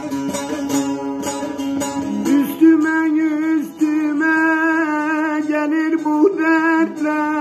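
Bağlama (long-necked Turkish saz) strummed in quick plectrum strokes over a steady drone. From about two and a half seconds in, a man's voice joins, singing long wavering held notes without clear words over the playing.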